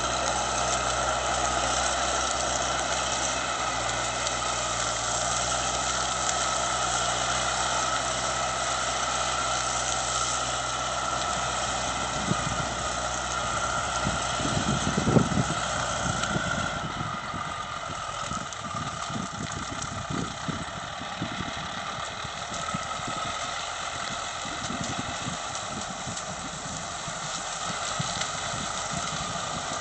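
Caterpillar 944 wheel loader's diesel engine running steadily as it works palm trunks. A loud knock comes about halfway through, and after that the steady drone thins out, leaving irregular knocks and rattles.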